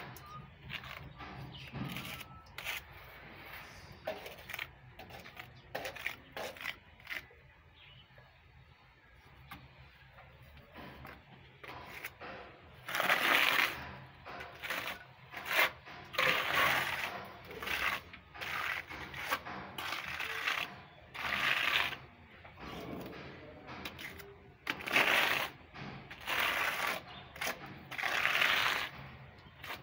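Steel trowel spreading and scraping thick texture paint across a rough wall: a run of short scraping strokes, each under a second, through the second half, with light taps and clicks of the blade before.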